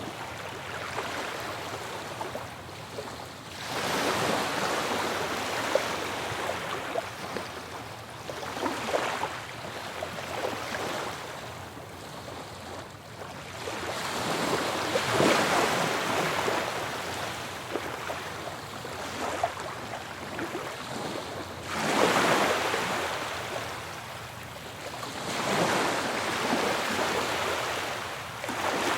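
Ocean waves breaking on a shore, one after another. Each swells into a hissing crash and washes back, about every four to seven seconds.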